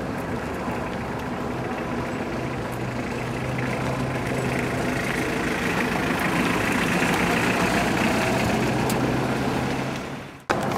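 A motor vehicle engine idling steadily, a low even hum over outdoor noise. The sound fades out briefly near the end and snaps back.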